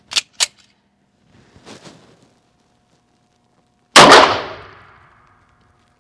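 Two sharp metallic clicks as the Star B 9mm pistol's slide is worked after clearing a stovepipe jam, then about four seconds in a single loud 9mm pistol shot whose report rings and dies away over about a second in the enclosed shooting bay.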